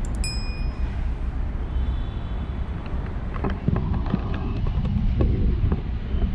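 Steady low outdoor rumble of traffic and open air on the microphone. Right at the start there is a quick click and a short bell chime from a subscribe-button sound effect, and a few sharp knocks come in the middle.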